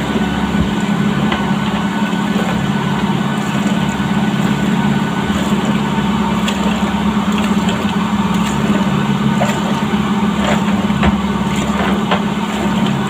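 Steady low drone inside the hull of a Volvo 65 racing yacht under way, with scattered clicks and knocks as the galley's manual water pump is worked to fill a pot.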